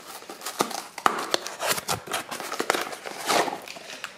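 Cardboard box and plastic wrap being handled as a wrapped welding-wire spool is unpacked: irregular rustling and crinkling with many sharp clicks and scrapes.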